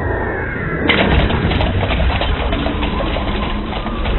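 Low, steady rumbling noise effect, with faint high whistling tones in the first second before it opens out.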